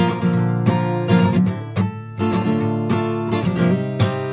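Background music: an instrumental stretch of a pop song, acoustic guitar strumming, between sung lines.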